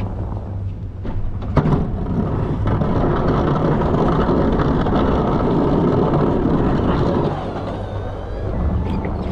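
Plow truck engine and driving noise heard from inside the cab, with a sharp click about a second and a half in and a louder stretch for several seconds in the middle.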